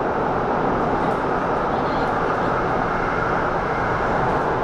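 Steady running noise of an SP1900 electric train in motion, heard from inside the passenger car: an even wheel-and-track roar with no breaks.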